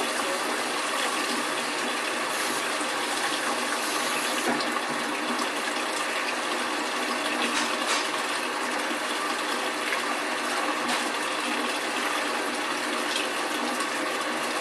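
Washing machine with water running through it: a steady rush of water.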